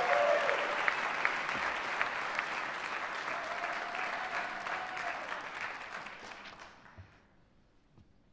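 Auditorium audience applauding, the clapping fading steadily and dying out about seven seconds in.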